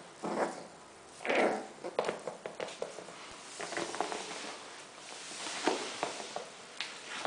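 A Yorkshire terrier playing with a rubber chicken toy on a tile floor: scattered clicks and scuffs of claws and the toy rubbing and dragging, with two short, louder noises about half a second and a second and a half in.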